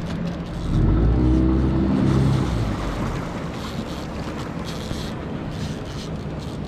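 Motorboat engine running over wind and water noise on the river. It swells louder for a couple of seconds about a second in, then settles back to a steady hum.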